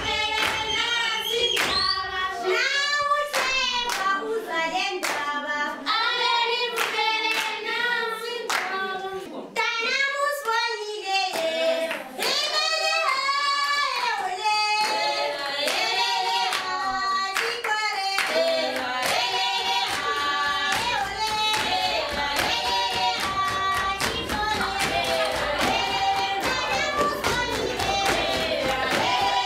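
A group of children singing together in unison, with steady hand clapping keeping the beat.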